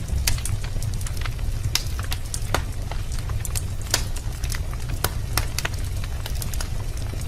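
Wood fire crackling in a fireplace: irregular sharp pops and snaps, several a second, over a steady low rumble.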